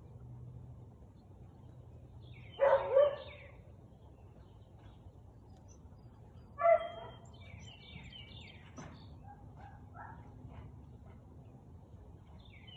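Husky barking: two barks in quick succession about two and a half seconds in, then a single bark about four seconds later.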